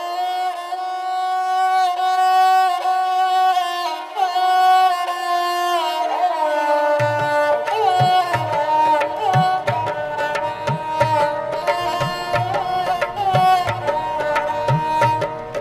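Instrumental background music: a held melody with sliding notes, joined about seven seconds in by a steady drum beat.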